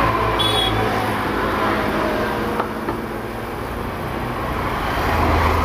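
Road traffic: motorbike engines running past, with a brief high-pitched horn beep about half a second in.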